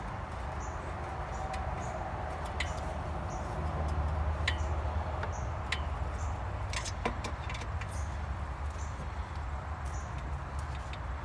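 A hand screwdriver driving small Phillips screws to fasten a mass airflow sensor into a plastic intake tube, with scattered light clicks and ticks, over a steady low rumble.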